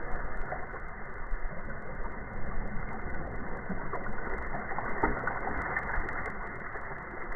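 Steady, muffled noise with many scattered clicks and knocks, from a dragon boat crew paddling on the water.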